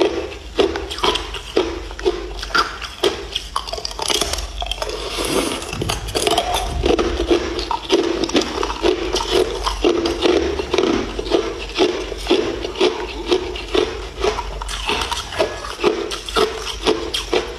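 Ice being chewed close to the microphone: a steady run of crunching, cracking bites at about two a second.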